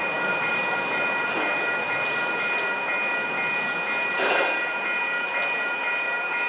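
Amtrak Pacific Surfliner passenger train rolling slowly through a station, a steady rumble of wheels on rail, with several steady high ringing tones held throughout. A short loud hiss-like burst about four seconds in.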